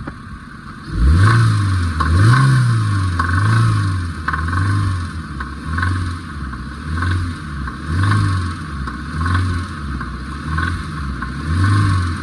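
Maruti Suzuki Eeco petrol engine revved in repeated blips, about once a second, with an abnormal noise that comes in under throttle although idle sounds normal. The engine had run without oil and seized a connecting-rod bearing.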